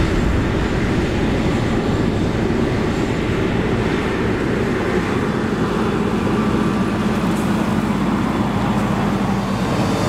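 Fendt 942 Vario tractor engine running steadily as it hauls a loaded silage trailer across a stubble field. A steady low hum comes in about halfway through.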